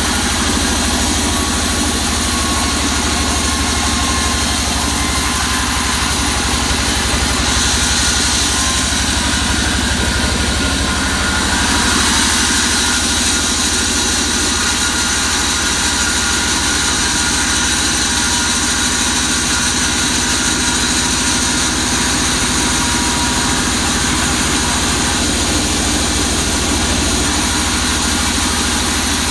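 Large vertical band saw running steadily while a waru log slab is fed through the blade, a continuous machine drone with the hiss of the blade cutting wood. The hiss brightens for a few seconds, from about eight to twelve seconds in.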